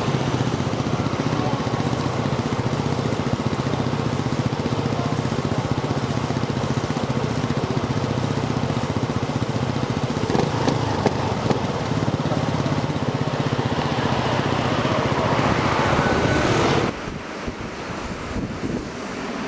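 Boeing 747-400 freighter's four turbofan engines running at taxi power close by: a loud, steady rumble. About 17 seconds in it cuts abruptly to a quieter 747-400 on approach, with wind on the microphone.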